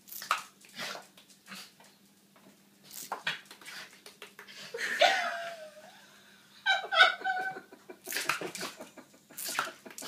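Small white terrier barking in short bursts as it snaps at squirts from a water pistol, with sharp clicks and snaps between the barks.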